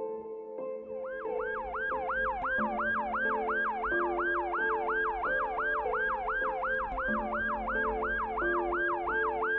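Ambulance siren in a fast yelp, about three rising-and-falling sweeps a second, starting about a second in. Sustained background music plays underneath.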